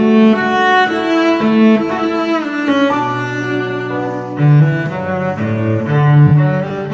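Background music on bowed strings: a slow melody of low, held notes that change about every half second to a second, some of them sliding between pitches.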